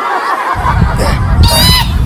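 Sound-effect crowd of children shouting and cheering, with a low rumbling noise underneath from about half a second in and a brief high wavering squeal near the end.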